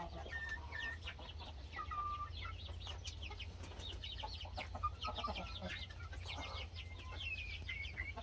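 A flock of young chicks peeping continuously, many short high chirps that fall in pitch, several a second, with a few longer, lower calls from the adult hens among them, over a steady low rumble.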